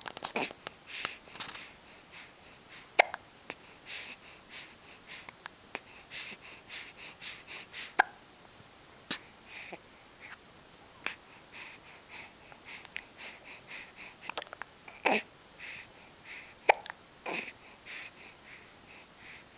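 A child hiccuping: about seven sharp, short hiccups at irregular gaps of one to five seconds.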